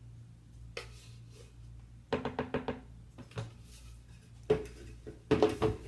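Blender jar knocked against a bucket to shake out the wet blended foliage mix: groups of sharp knocks, one run of several quick taps, with a short ring after each.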